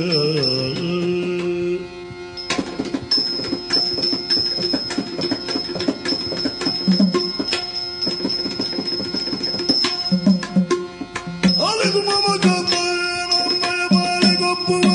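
Yakshagana music: a sung line dies away in the first second or two, then drum strokes run over a steady drone. Singing rises in again about eleven and a half seconds in.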